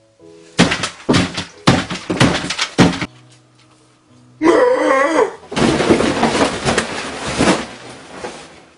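Loud banging and crashing as a table set with plates and bottles is knocked over: several sharp hits, then a drawn-out wavering yell about halfway through, then a long crash and clatter that dies away near the end.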